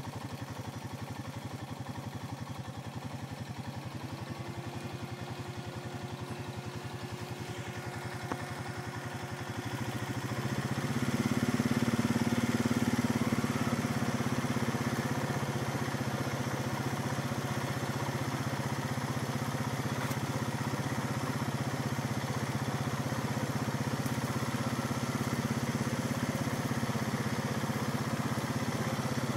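ATV engine idling, then about ten seconds in revving up and running steadily as the ATV drives off.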